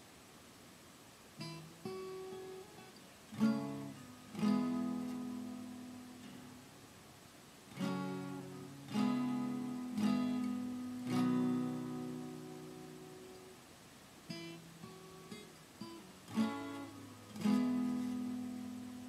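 Acoustic guitar playing a slow instrumental intro. It starts about a second and a half in with a few picked notes, then moves to strummed chords that are left to ring and fade, in a repeating pattern.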